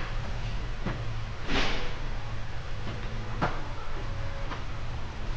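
A few scattered light knocks and clicks, with one short rustling scrape about a second and a half in, over a steady low hum.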